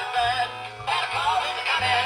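A song playing, a singing voice over a bass line.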